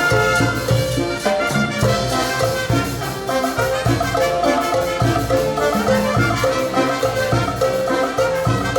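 Band playing instrumental cumbia peruana: a repeating melody over a steady percussion beat.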